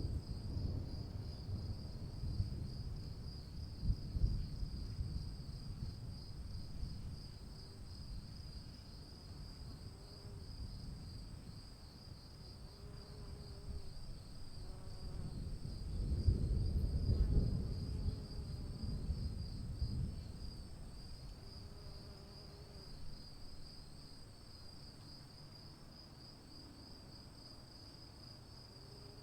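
Storm ambience: low rumbles of distant thunder swell briefly about four seconds in and more strongly past the midpoint, then die away, over a steady high-pitched trill of insects.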